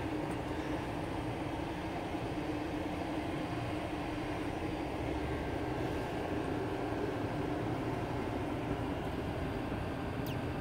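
Steady low rumble with a constant hum, as of a motor or machine running.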